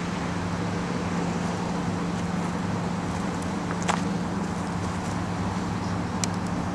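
Engine of the truck towing the hydraulic boat trailer idling with a steady hum, with two sharp clicks about four and six seconds in.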